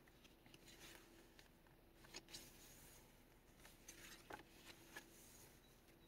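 Near silence with faint paper rustling and a few soft taps as a page of a handmade paper junk journal is turned, over a faint steady hum.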